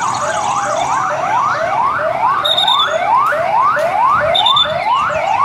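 Police patrol car sirens sounding in a fast repeating rising sweep, about two to three sweeps a second, each snapping back down to the start. In the first second or so, two sirens overlap out of step.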